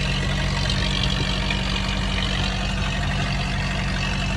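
Tractor engine running steadily at constant speed, a low even hum.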